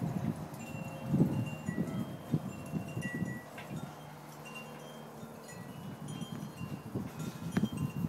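Backyard wind chimes ringing in the wind, with scattered high, clear tones. Low gusts of wind buffet the microphone, strongest about a second in and again near the end.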